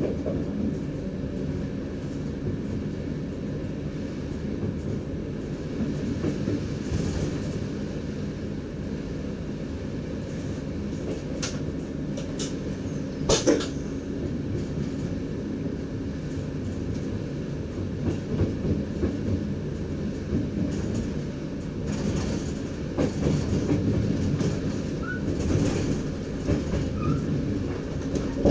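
A Dutch DDZ double-decker train running on the track, heard from the driver's cab: a steady low rumble of wheels and running gear. About halfway through come three sharp knocks close together, and the rumble grows rougher in the last third.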